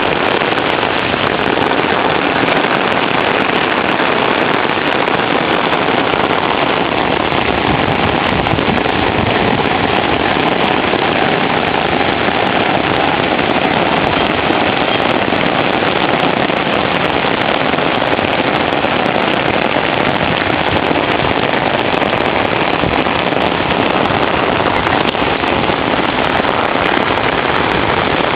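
Steady rain: a dense, even hiss with a constant crackle of drops striking hard surfaces.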